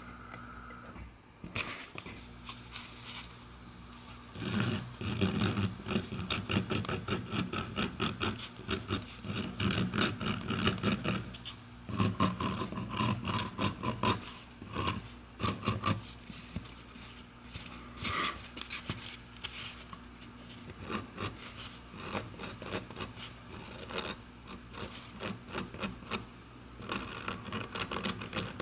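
A high-speed rotary handpiece with a small cutting bit cutting into a briar pipe bowl to carve a rusticated texture, the bit's contact with the wood coming in rapid, uneven bursts of rasping. The cutting is quieter for the first few seconds, then busiest from about four to sixteen seconds in.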